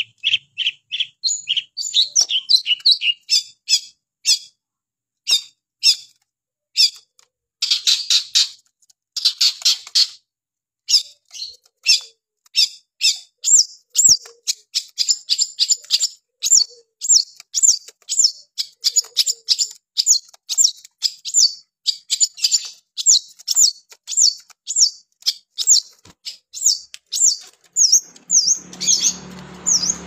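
Caged long-tailed shrike singing in a continuous stream: a fast run of short, sharp chirps and harsh scratchy notes that later settles into crisp high notes repeated about twice a second. A low steady hum comes in near the end.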